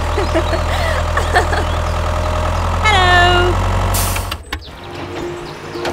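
Tractor engine idling with a steady low chug. A short falling pitched tone sounds about three seconds in, and the engine cuts off suddenly a little after four seconds.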